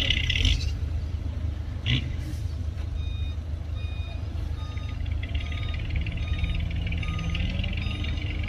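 Heavy earthmoving machinery running with a steady low diesel rumble, a single clank about two seconds in, then a reversing alarm beeping at an even pace from about three seconds in.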